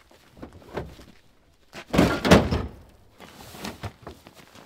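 Pickup truck tailgate being lowered open, a burst of loud metal thunks and clunks about two seconds in, with lighter knocks of gear being handled before and after.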